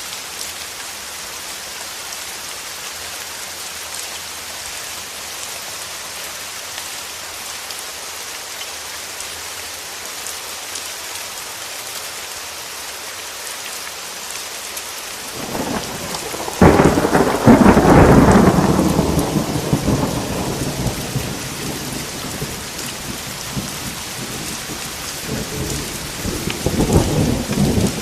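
Steady heavy rain. About halfway through, a thunderclap cracks and rolls into a long rumble that slowly fades, and a second, softer rumble comes near the end.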